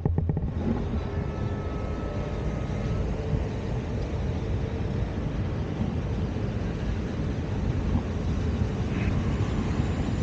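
Steady low rumble of a moving vehicle, an even noise that holds at the same level throughout.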